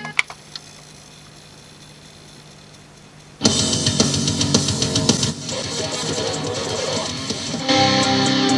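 Rock music with electric guitar and drums played back from the CD player, cutting in suddenly about three and a half seconds in once the player has found the track, and getting louder near the end. Before it, a couple of clicks and a quiet stretch.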